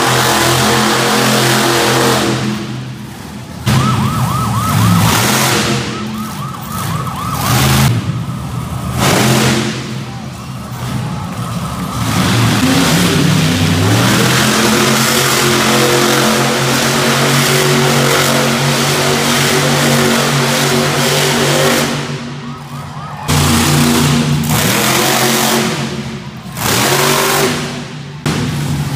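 Monster truck engine running hard at high revs. It drops off the throttle several times and revs back up, its pitch sliding up and down as it revs.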